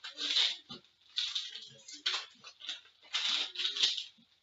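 Trading-card packaging and cards being handled and opened: irregular rustling and crinkling in several short bursts, with a few light knocks.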